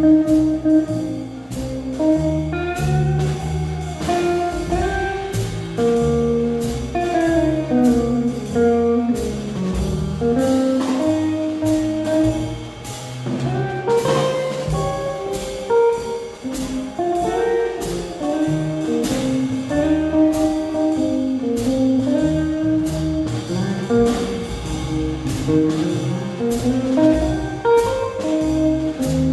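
A small jazz-style combo playing: electric guitar, upright bass and keyboard over a drum kit keeping a steady beat with cymbal strokes.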